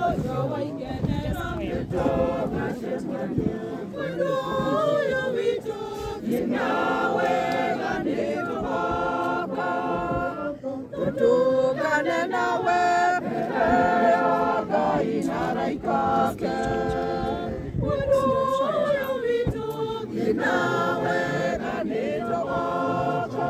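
A group of voices singing together without instruments, choir-style: mourners singing at a graveside burial.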